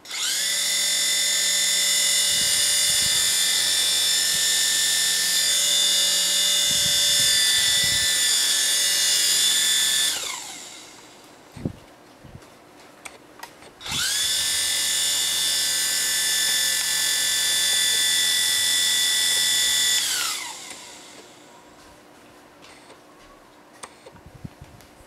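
Toy helicopter's small electric rotor motors whining at a steady high pitch for about ten seconds, then spinning down. A few seconds later they start again, run about six seconds and spin down once more.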